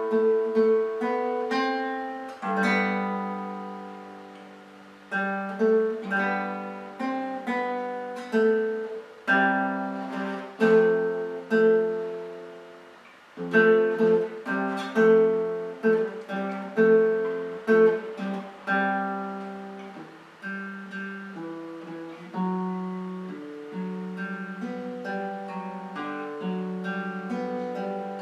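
An acoustic guitar plays a chord accompaniment in A minor, G, F, C and an E chord, mixing plucked chords and strums. Each chord rings and fades before the next is struck.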